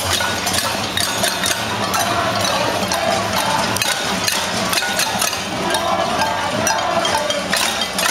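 A crowd banging on pots and pans, a steady dense clatter of many uneven metal strikes.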